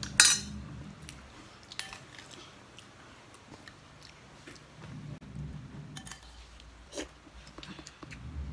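A metal serving spoon clanks sharply against a glass serving bowl about a quarter second in, followed by a few light clinks of a small spoon against a sauce dish and soft chewing and eating noises.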